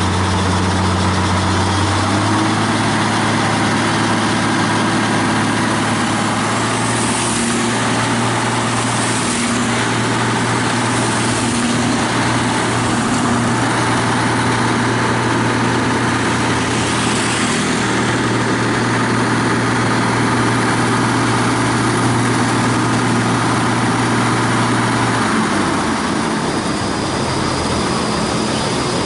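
Truck diesel engine idling steadily; its low note shifts slightly about two seconds in and eases off a little near the end.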